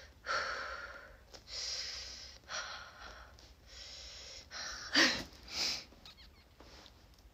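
A person blowing warm breath into cupped hands: several long, hissing exhalations, followed about five seconds in by two shorter, louder breaths.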